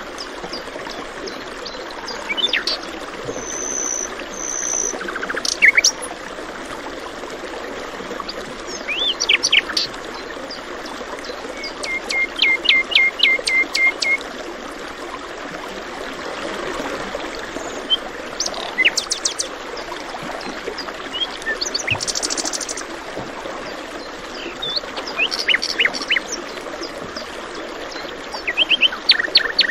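Several birds chirping and calling in short phrases, one giving a quick run of about eight even notes, over the steady rush of running water.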